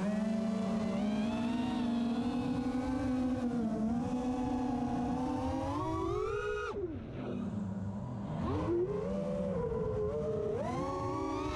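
FPV freestyle quadcopter's brushless motors (HypeTrain 2306 2450kv) and propellers whining, the pitch rising and falling with the throttle. About seven seconds in, the whine drops sharply as the throttle is chopped, then dips once more and climbs back up.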